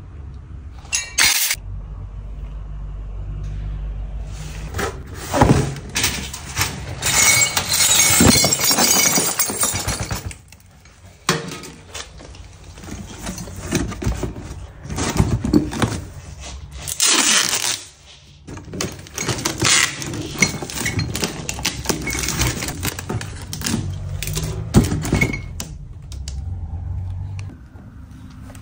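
Close-up handling sounds: pieces of a broken drinking glass clinking together about a second in, then a cardboard box being pressed, folded and torn, crackling and scraping in irregular bursts with short pauses.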